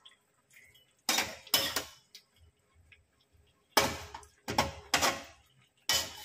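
Metal spatula scraping and clanking against an aluminium wok while stirring and turning chicken adobo and boiled eggs in their sauce. The strokes come in short bursts: a couple about a second in, then a quicker run in the last two seconds or so.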